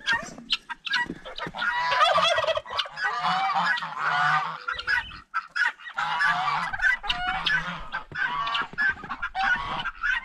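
A flock of guinea fowl and other poultry calling loudly. The harsh, cackling calls overlap and repeat without a break, loudest from about two to five seconds in.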